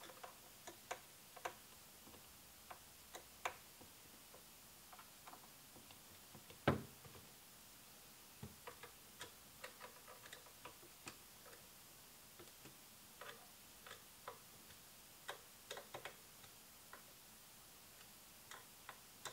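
Faint, irregular clicks and ticks of a hand screwdriver turning small screws snug into an aluminium camera-flash cage, with one louder knock about seven seconds in.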